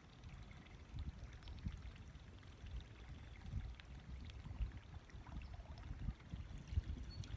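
Wind buffeting the microphone: a faint, irregular low rumble that swells and drops in gusts.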